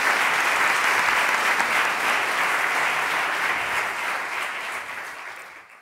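Large audience applauding steadily, the clapping fading away near the end.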